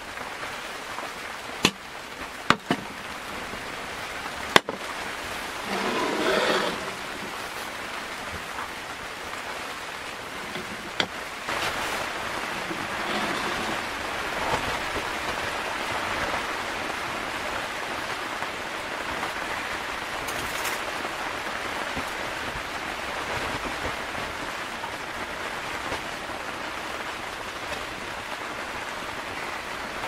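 Rain falling steadily on the tent fabric, an even rushing patter, with a few sharp clicks and knocks in the first few seconds.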